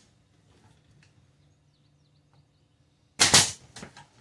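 Pneumatic brad nailer firing a nail into wood trim: one sharp shot a little past three seconds in, followed by a couple of fainter clicks.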